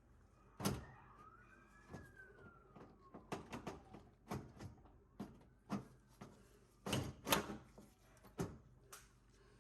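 Irregular clicks and knocks of hands handling a microwave's parts and connectors, with the loudest knocks near the start and again about seven seconds in. A thin tone rises and then falls about a second in.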